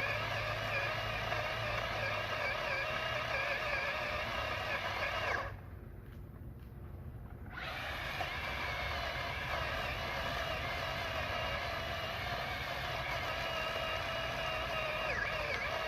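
Worx WG323 20V cordless pole saw/chainsaw running with a steady high motor whine while cutting wood. It stops for about two seconds a third of the way in, then starts up again.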